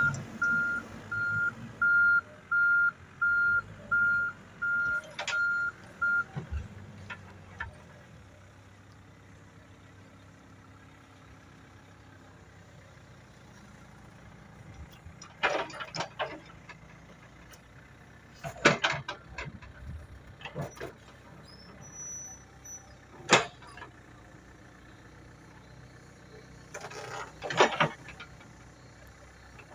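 Komatsu WB93R backhoe loader's reversing alarm beeping evenly, about nine beeps over the first six seconds. After that the diesel engine runs quietly under a few sharp, loud clanks.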